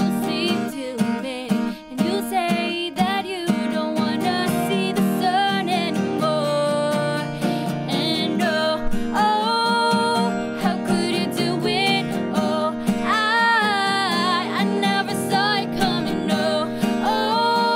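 Two women singing together over two acoustic guitars, strummed and picked.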